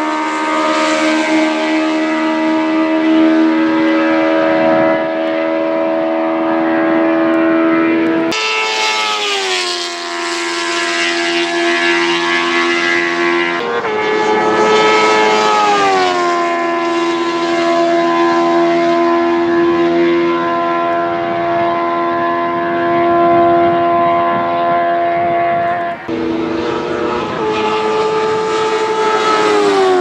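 Open-wheel Formula Predator's race cars passing at speed one after another, each high-revving engine note sliding down in pitch as the car goes by. The sound changes abruptly about 8, 14 and 26 seconds in as one pass gives way to the next.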